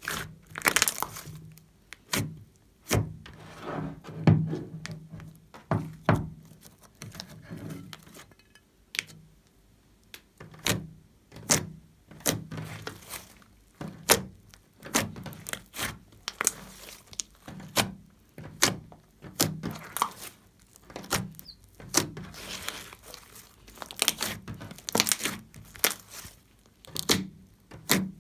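Hands kneading and pressing a large mass of pink and blue slime, making irregular sharp pops and squishes about one or two a second.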